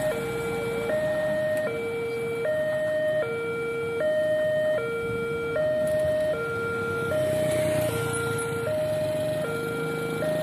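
Railway level-crossing warning alarm sounding a steady two-tone electronic signal, a high note and a low note taking turns about every three-quarters of a second: the crossing is closing for an approaching train. Road traffic runs underneath.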